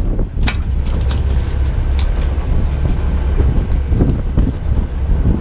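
Wind buffeting the microphone in a steady low rumble, with a few sharp knocks and clicks, about half a second and two seconds in, as a cod is unhooked and dropped onto the boat's deck.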